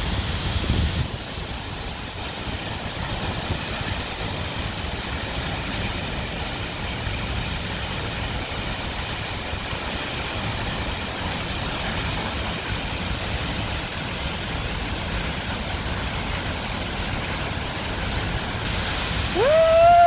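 Tall waterfall plunging into a pool: a steady rush of falling water. Near the end a loud, high voice cry rises and then falls in pitch.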